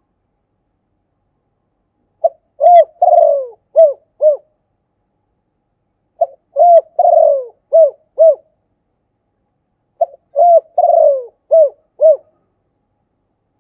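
Spotted dove cooing: three phrases of five or six notes each, about four seconds apart, each note dropping in pitch.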